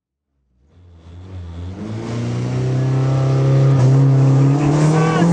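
Rally car engine heard from inside the cabin, fading in about half a second in and pulling hard, its pitch climbing steadily as the car accelerates.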